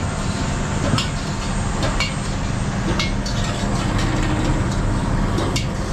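Steady rumble of road traffic, with a few short clicks about once a second.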